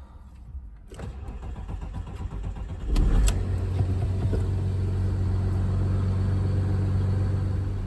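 Audi A6 C5 2.5 TDI V6 diesel being cranked on the starter for a couple of seconds, then catching about three seconds in with a burst of revs and settling into a steady idle. This follows the replacement of its fourth injector.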